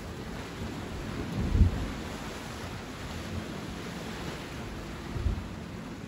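Sea waves washing on the shore, a steady rushing, with two brief low thumps, the louder about a second and a half in and a weaker one near the end.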